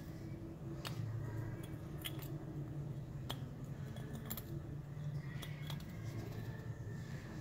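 Small metal pick clicking and scraping against a freshly cast aluminum piece as mold material is chipped off it, a handful of sharp separate clicks over a steady low hum.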